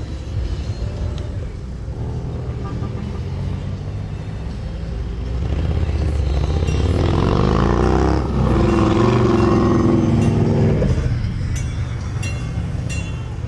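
Cars from a parade rolling past with a steady engine rumble. About six seconds in, a classic car's engine comes up loud as it drives by. Its note rises and then falls away a little before the end.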